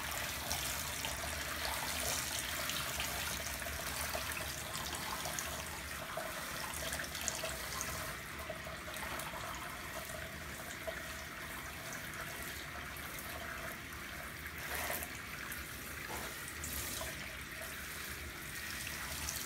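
Handheld shower head spraying water over a golden retriever's coat and into the bathtub, a steady hiss of running water.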